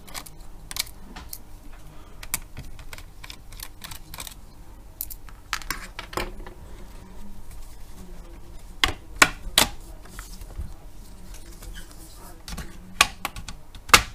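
Plastic clips of a Lenovo Flex 14 laptop's display housing clicking and snapping loose as the lid is pried apart with a plastic opening tool. Scattered light clicks, with a few sharper snaps about nine seconds in and two more near the end.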